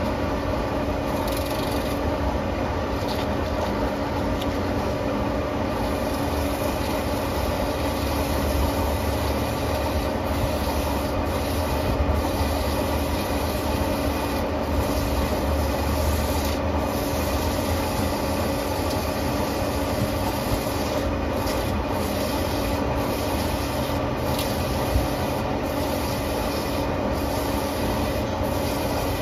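Okuma CNC turret lathe spindle running steadily, a constant hum with a few faint ticks. Partway in, a hand-held abrasive rubs against the spinning suppressor cap as it is polished.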